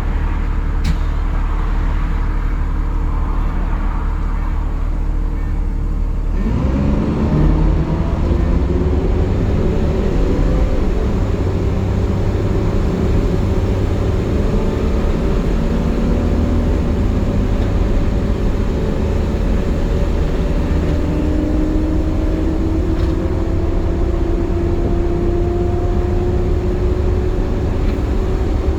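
Optare Solo bus engine idling steadily, then about six seconds in pulling away, its note rising with several whining tones that keep climbing slowly as the bus gathers speed. The whine is the 'hoovering' sound the bus makes in warm conditions.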